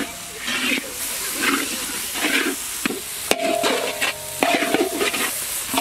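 Steel ladle stirring raw peanuts, dried red chillies and masala in a large iron wok, scraping across the pan in repeated strokes about one and a half a second over a frying sizzle. Two sharp clinks of the ladle against the pan come about three seconds in.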